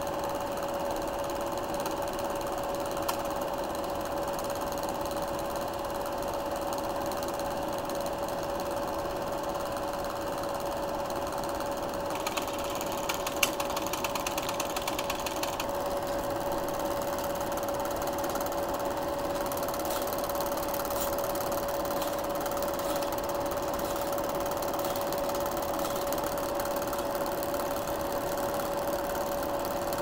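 16mm film projector running: a steady mechanical clatter from its motor and film-advance mechanism over a constant hum, with a few sharp clicks about halfway through.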